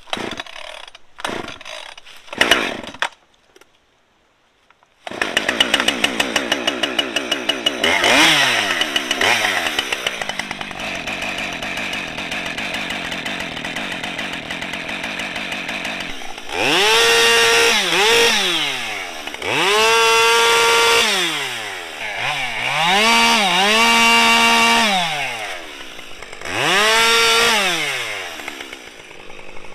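Husqvarna 550 XP two-stroke chainsaw starting up about five seconds in and idling with a couple of quick throttle blips. Later it is revved to full throttle four times, each burst held for one to two seconds before dropping back to idle.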